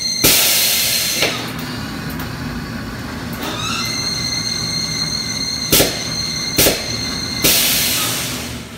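Road force wheel balancer spinning a truck tire under its air-bag-loaded drum: a steady high whine that drops out and comes back, broken by several loud hisses of air as the loading drum lets off and presses on again.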